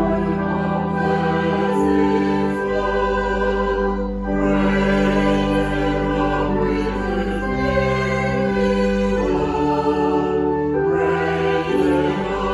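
Slow church music in long held chords that change every second or two.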